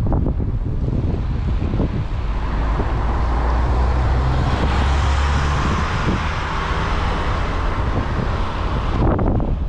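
Wind rumbling on the microphone of a camera carried on a moving bicycle, with a hiss that swells through the middle and drops away suddenly about nine seconds in.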